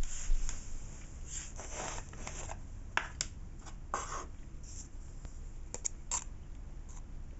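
A screw-top pigment jar being opened and handled on a table: a run of short scrapes and rustles as the lid is twisted off, then a few sharp clicks and knocks as the lid and jar are set down.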